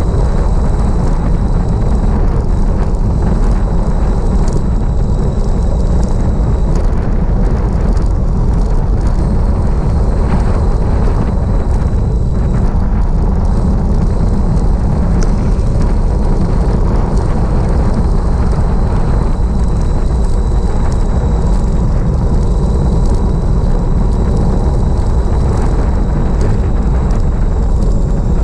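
Wind buffeting the microphone of a bike-mounted camera on a downhill road descent: a loud, steady low rumble mixed with tyre and road noise, with a few small ticks from road vibration.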